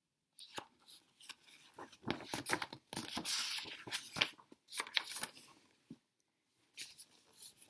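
Paper rustling and brushing in short, irregular bursts as the pages of a picture book are handled and turned.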